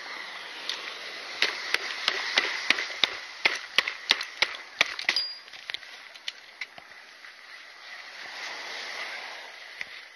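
Fishing gear being handled and packed up close to the microphone: a quick run of sharp clicks and knocks for a few seconds, then softer rustling.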